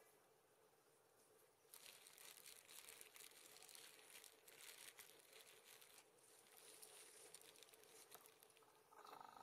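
Faint crackling rustle, starting about two seconds in and lasting about four seconds, over near silence. Near the end a short, soft buzzing rhythm begins.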